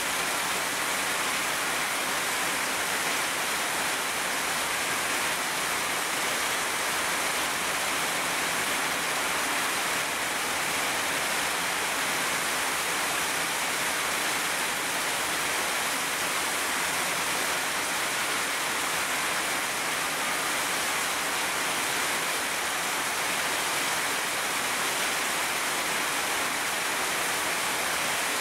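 Heavy rain pouring steadily on tree leaves, an even unbroken hiss with no thunder.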